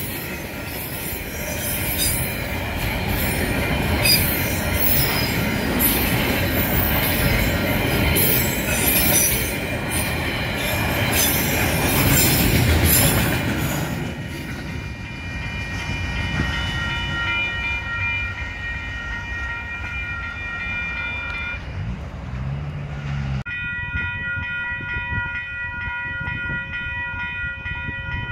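Freight wagons rolling past over the rails, loud for roughly the first half, then fading as the last wagons go by while the level crossing's alarm bells ring steadily. Near the end, another crossing's alarm bells ring on their own.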